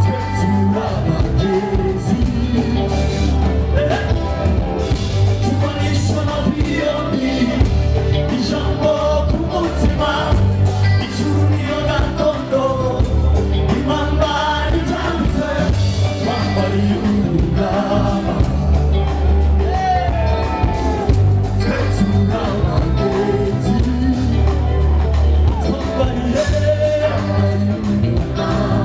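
Live gospel band playing with a male lead singer and backing vocals over a heavy bass line in long, even notes.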